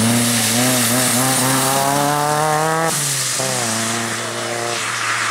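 Turbocharged Opel Astra rally car engine under hard acceleration: its pitch climbs for about three seconds, breaks off sharply at a gear change, climbs again, and drops near the end as the next shift or lift comes.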